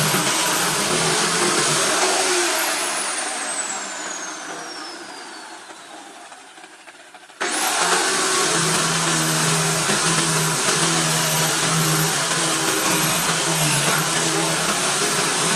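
A high-speed woodworking power tool motor running with a high whine. About two seconds in it is switched off and winds down, its whine falling steadily in pitch as it fades. About seven seconds in it is running again at full speed.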